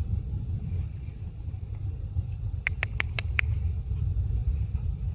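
Wind rumbling on the microphone throughout, with five short, sharp high squeaks in quick succession a little past the middle.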